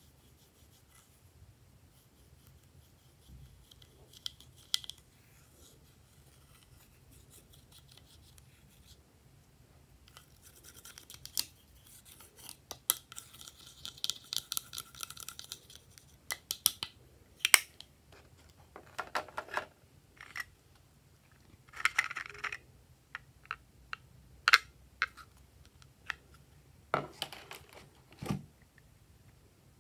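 Small plastic tool scraping pressed powder out of a plastic makeup compact: faint at first, then a dense run of quick scratching, followed by scattered scrapes and sharp clicks and taps of the plastic case.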